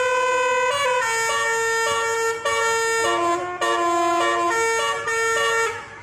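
Bus telolet horn playing a tune: several held horn notes sounding together and stepping from pitch to pitch every half second or so, breaking off briefly twice and dying away just before the end.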